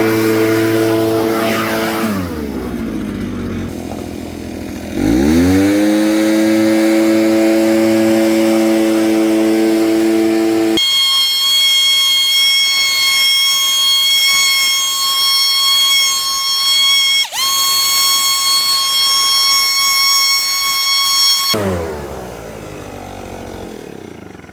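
VEVOR 79cc two-stroke backpack leaf blower running hard under throttle. The revs drop about two seconds in and climb back quickly about five seconds in. About eleven seconds in, the sound changes abruptly to a high, steady whine, and near the end the revs fall away.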